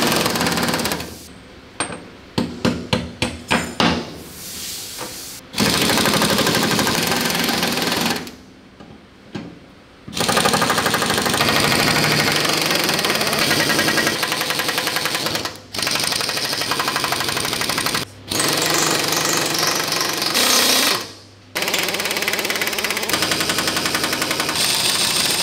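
Impact wrench hammering in runs of several seconds, broken by short pauses and a few quick trigger blips about two to four seconds in. It is undoing bolts on a WW2 Grant tank's turret ring through nuts welded onto the bolt heads.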